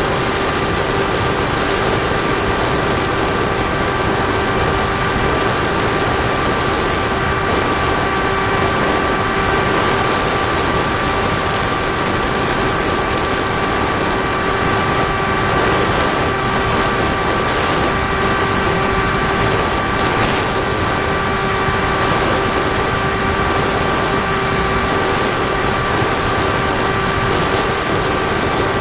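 Firstar 2000 FPV model plane's electric motor and propeller running at a steady cruise, heard from its onboard camera: an even whine of several fixed tones over a constant rushing of air.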